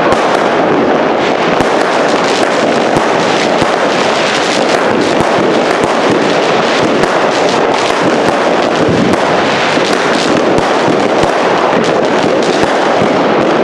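Two consumer firework cakes (multi-shot batteries), a Silver Salute cake and a Wenus cake, firing at the same time. They make an unbroken barrage of shots and crackling bursts, with many sharp cracks packed closely together.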